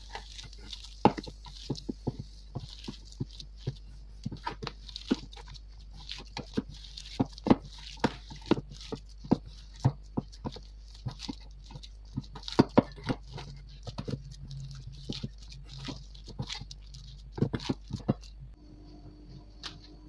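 Hands kneading and pressing raw minced-beef meatball mixture in a stainless steel bowl: irregular smacks of the meat against the bowl, two or three a second. Near the end they stop and a faint steady hum is left.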